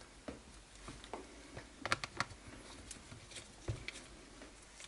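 Scattered light clicks and taps of a screwdriver and small screws being handled against an RC buggy's plastic chassis parts, a quick cluster of them about two seconds in and a duller knock near the end.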